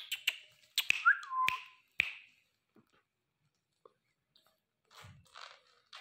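Indian ringneck parrots touching beaks: five sharp beak clicks in the first two seconds. A short whistled note about a second in rises, then drops and holds. Soft scratchy sounds follow near the end.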